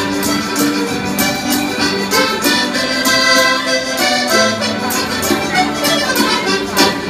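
Organetto (diatonic button accordion) playing a traditional folk dance tune over a steady percussive beat.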